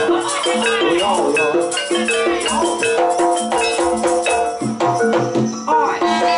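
Live jaranan accompaniment music: a gamelan-style ensemble playing a repeating pattern of held metallophone notes over drumming, with rattling percussion throughout.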